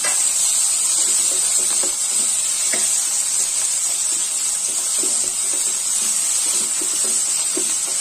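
Sliced onions, tomatoes and green chillies sizzling steadily in oil in a nonstick kadai, frying as a biryani masala base. A wooden spatula stirs them, with light, irregular scrapes against the pan.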